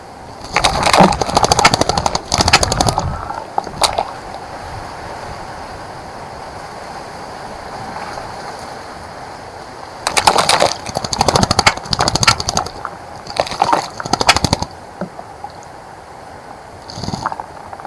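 A bird bathing in a bird bath, splashing water with rapid wing flutters in two bouts of several seconds each, with a short splash near the end.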